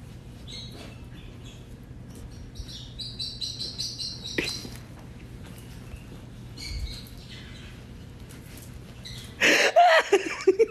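High-pitched squeaky chirps from a small young pet, coming in short runs and loudest about three to four and a half seconds in. Near the end comes a louder voice-like burst.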